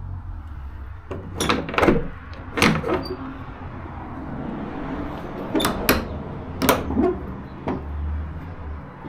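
A door being worked by hand: a series of sharp clacks and knocks from its latch and frame, in two clusters, over a steady low rumble.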